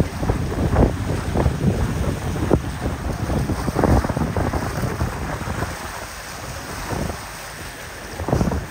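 Gusty wind buffeting the microphone over the wash of waves, heaviest in the first half and easing after about six seconds, with one more gust near the end.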